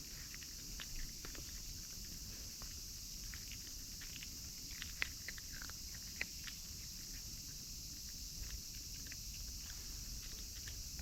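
Cats eating dry cat food: faint, irregular crunching clicks, two slightly louder ones about five and six seconds in, over a steady high hiss.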